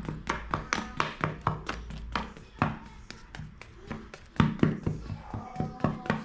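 A wooden skewer jabbed again and again into a baked chocolate sponge, its point tapping on the bottom of the metal cake pan in quick, sharp taps, several a second, with a short pause partway through.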